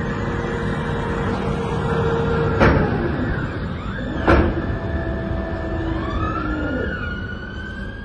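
Electric drives of a P&H 4800XPC electric rope shovel whining, several tones gliding up and down in pitch as the dipper moves, with two sharp clanks a couple of seconds apart near the middle.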